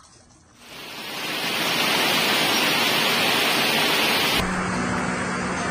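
Heavy rain pouring down, a dense steady hiss that fades in within the first second or so. About four and a half seconds in the hiss turns softer and duller, and a low steady hum joins it.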